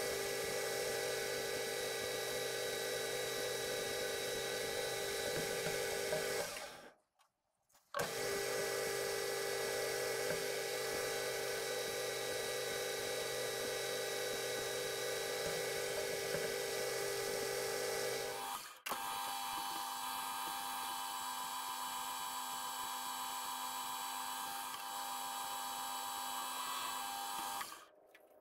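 Metal lathe running with a steady whine from its motor and gearing while a parting tool cuts a taper into a steel pulley blank. The sound cuts out briefly about seven seconds in, shifts to a different set of tones about nineteen seconds in, and stops near the end as the lathe comes to rest.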